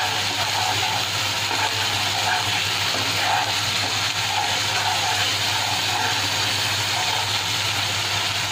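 Spice paste sizzling steadily as it fries in hot mustard oil in a nonstick pan, stirred with a spatula while it is cooked down until the oil separates. A steady low hum runs underneath.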